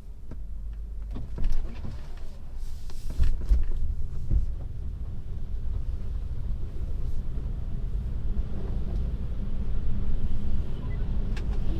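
Tesla electric car rolling over snow, with a steady low rumble of tyres and road noise and a few sharp knocks in the first few seconds.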